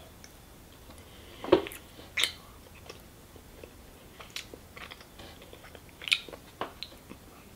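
A child chewing sticky sweets with his mouth closed: scattered wet smacks and clicks, two louder ones about one and a half and two seconds in, then a few softer ones.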